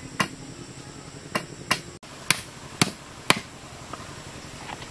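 Claw hammer striking bamboo poles: about six sharp, separate blows, roughly half a second to a second apart, then a lighter tap near the end.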